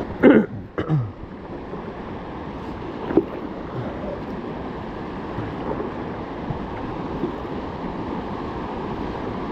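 Steady rush of flowing river water mixed with wind on the microphone. Two short, loud sounds falling in pitch come in the first second, and a brief knock about three seconds in.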